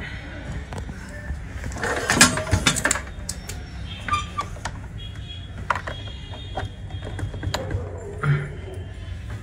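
Plastic and foam wrapping on a flat-screen TV rustling and crinkling as the set is handled. The crinkling is loudest in a burst about two seconds in, with scattered crackles later.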